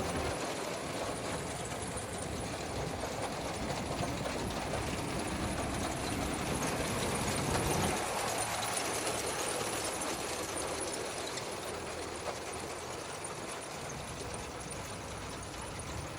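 Tractor engine running as it works a potato harvester through the field. It grows to its loudest about halfway through, then the low rumble drops away and it slowly fades.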